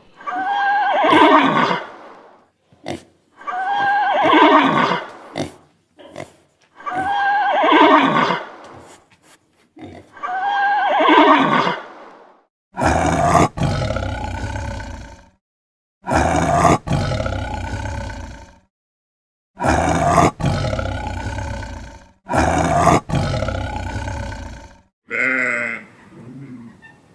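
Loud animal calls, each about two seconds long: one call is repeated four times, then a different, rougher call is repeated four times, and a third, shorter animal sound begins near the end.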